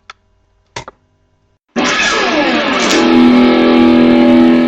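Two short clicks, then loud guitar music starting about two seconds in: a quick falling run of notes settling into a held chord.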